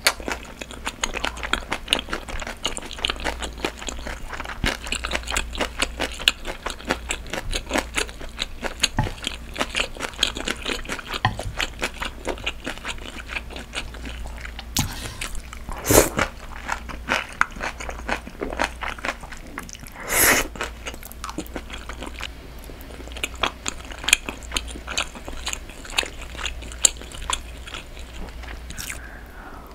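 Close-miked chewing of spicy braised monkfish with bean sprouts and thin wheat noodles: a steady run of small wet crunches and chewing clicks, with a couple of louder single sounds about halfway through.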